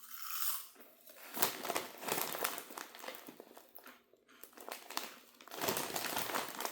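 A Lay's potato chip bag being handled, its plastic crinkling in quick, irregular crackles that get busier about a second and a half in.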